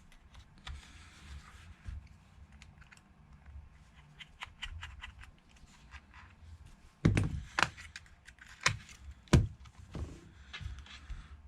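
Small clicks and taps of precision tools and phone parts being handled on a repair bench. They are scattered and light at first, then a run of louder sharp clicks and knocks starts about seven seconds in.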